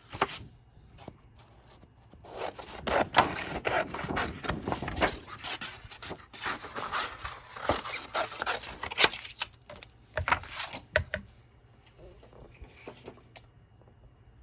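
A cardstock file folder being cut: a run of scratchy, scraping strokes from about two seconds in to about eleven seconds in, after a sharp click at the start, then a few light ticks.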